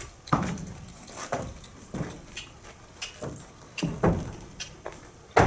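A horse's hooves stepping on a horse trailer's ramp and floor as it backs in: hollow thuds about once a second, the loudest near the end.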